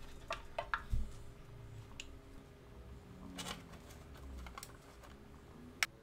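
Hands handling a small box covered in soda-can sheet, fitting its little red drain hose: scattered light clicks and taps, a few at a time with gaps between.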